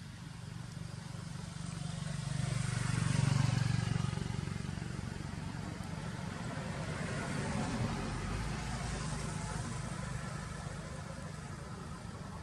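Motor vehicles passing, with a low engine hum: one swells and fades about three to four seconds in, and a second, weaker one passes around eight seconds.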